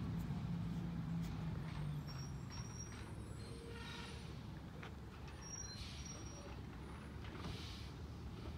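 Garbage truck's engine running, its low hum fading over the first two seconds, with three brief hisses of air through the middle and near the end.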